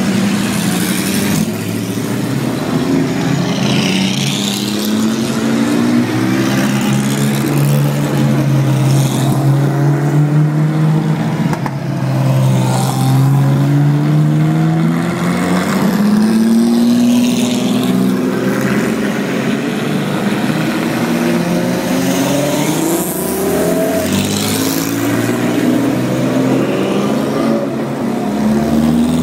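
Several historic racing car engines running and revving in turn, their pitch rising and falling as the cars move past one after another.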